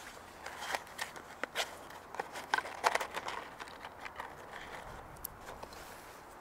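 Irregular handling noises: sharp clicks, taps and rustles, thickest in the first half, as a smudge shell and other ceremonial items are picked up and handled.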